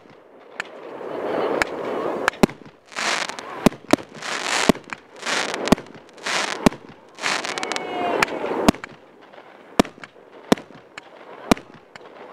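Aerial fireworks firing: sharp bangs about once a second, with pulsing stretches of hiss in the middle.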